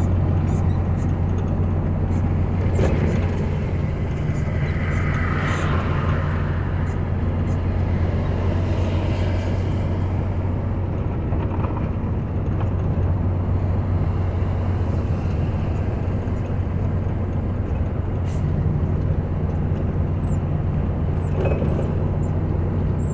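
Vehicle cabin noise while driving in heavy rain: a steady low engine drone with road and rain noise, unchanging throughout.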